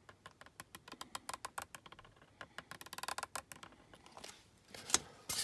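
White permanent marker tip scratching and ticking around the edge of a small plastic circle template on a tiny model wheel, drawing a white-wall tyre: quick runs of small dry clicks, with a sharper tap near the end.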